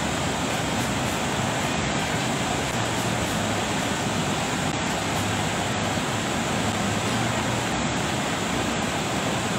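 Steady rushing roar of a river in flood, an even unbroken noise of fast, high water.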